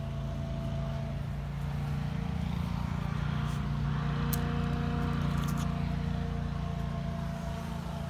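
Steady low motor hum, like an engine running, growing a little louder through the middle, with a few light clicks about halfway.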